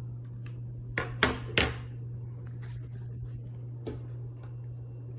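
Hampton Bay Veranda ceiling fan's motor humming steadily, just switched to high speed, with a few sharp clicks about a second in.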